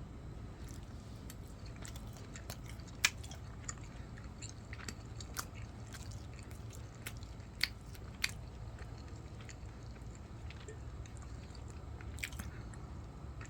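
A person chewing food close to the microphone, with scattered small wet clicks and smacks, three of them louder. A low steady hum runs underneath.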